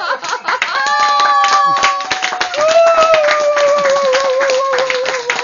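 A small audience clapping, with long held, slowly falling voice calls ringing out over the applause.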